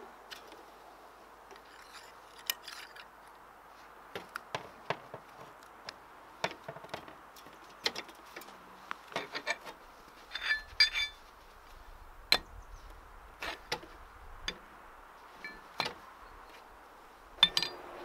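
Scattered metallic clicks and knocks of steel parts being handled as a magnetic welding ground connector is set up in a vise, with a few ringing clinks about ten and a half seconds in and a louder knock near the end as a steel plate goes onto the magnet.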